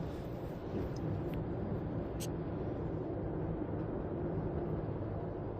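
Steady car interior noise while driving: engine hum and tyre rumble on the road, heard from inside the cabin.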